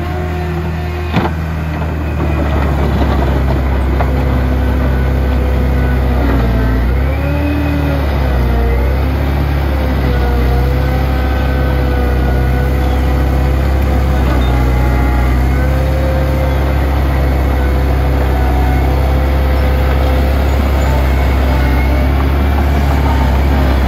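Heavy diesel engine of a tracked dozer running steadily, a little louder from about two seconds in, with a wavering whine drifting up and down over the low rumble.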